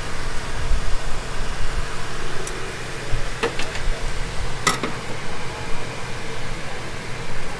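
Steady fan noise at a street-food stall, with a few sharp metal clinks around the middle as a metal spatula knocks on the steel griddle tray.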